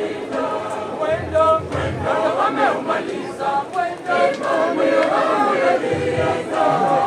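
A group of mourners singing together, many voices at once.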